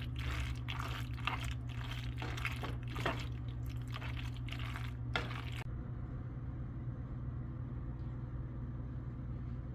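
Rapid small clicks and crunchy taps of food and dishes being handled or eaten, over a steady low hum. The clicks stop suddenly a little over halfway through, leaving only the low hum.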